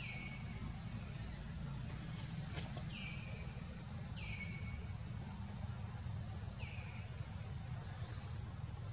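Forest ambience: a steady high-pitched insect drone over a low rumble, with a short call that slides down in pitch and levels off, heard four times. A single sharp click about two and a half seconds in.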